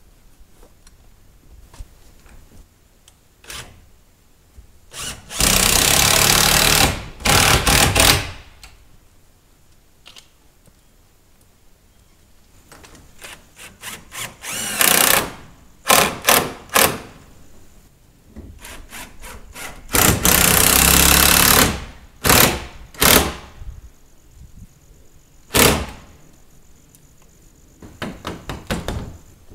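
Cordless drill running in several bursts of one to two seconds, driving screws to fasten polycarbonate panels to wooden framing, with a few short knocks in between.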